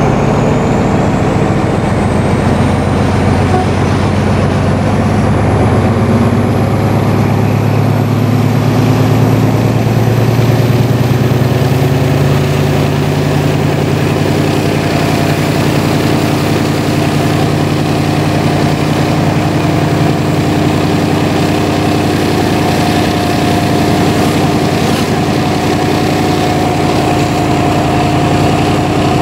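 CP 1900-series diesel locomotive No. 1909 with its engine running steadily as it moves along the line. A faint high whine climbs in pitch over the first dozen seconds or so.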